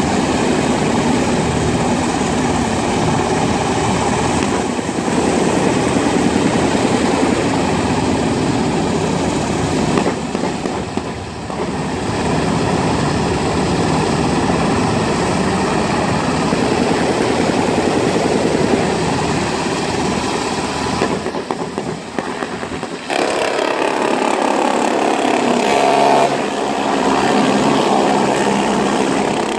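Black Hawk military helicopter running loud and steady in a low hover, its rotor and turbine noise filling everything. It dips briefly twice and changes character about three quarters of the way through as the helicopter climbs away and moves past.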